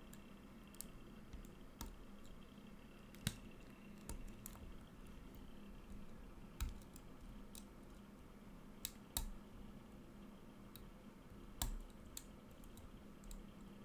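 Faint, irregular sharp clicks of a pick and tension bar working the pins of a Medeco M3 lock cylinder, about ten spread over the stretch.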